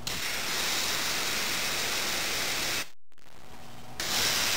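Compressed air hissing from a small hose blown into the passages of a Rochester carburetor body to leak-test its well plugs. Two blasts: one about three seconds long, a short break, then a second starting near the end.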